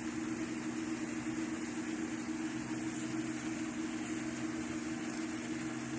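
A steady, unchanging low machine hum, like a household appliance motor running, over a faint hiss.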